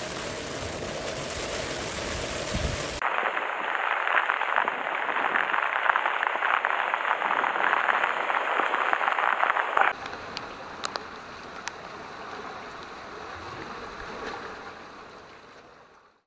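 Heavy rain with surf on a rocky sea shore in a storm. About three seconds in it changes to a dense crackle of raindrops hitting close to the microphone, which drops to a softer hiss about ten seconds in and fades out near the end.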